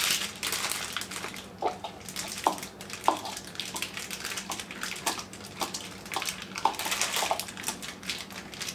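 A block of cheese grated by hand on a small handheld metal grater: a run of rasping scrapes, roughly one to two strokes a second, with light clicks as the grater knocks against the bowl.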